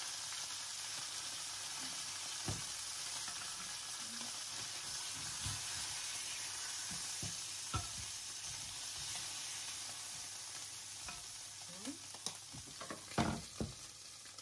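Chicken pieces sizzling in hot oil in a frying pan, a steady hiss that eases off somewhat after about ten seconds. A few light clicks of tongs and a spoon against the pan.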